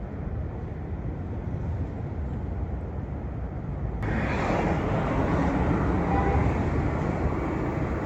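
Steady low outdoor rumble, like distant vehicle traffic. About four seconds in, it turns abruptly louder and brighter, with more hiss.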